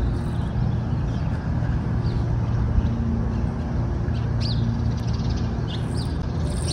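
Street ambience: a steady low rumble with small birds chirping, a few short high chirps in the second half.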